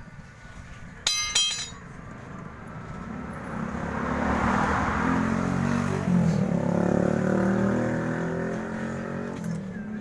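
A sharp metallic clink about a second in, then a motor vehicle passing by, swelling to its loudest around the middle and fading away.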